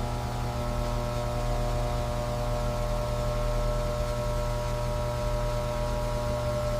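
Steady low hum with several held tones over it, unchanging throughout.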